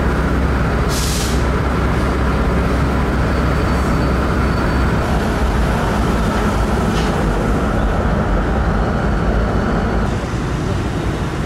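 Steady low mechanical rumble aboard a car ferry, with a vehicle driving across the car deck at the start and a short hiss about a second in. The rumble drops slightly near the end.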